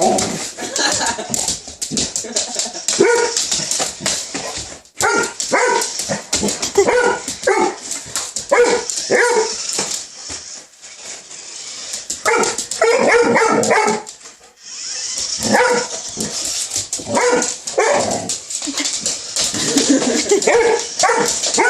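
Dog barking repeatedly in short, irregular bursts, with a quick run of barks a little past the middle, over a steady high hiss.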